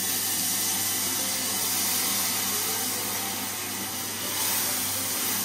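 Soy sauce poured into hot sesame oil and chopped garlic in a small stainless saucepan, sizzling with a steady loud hiss.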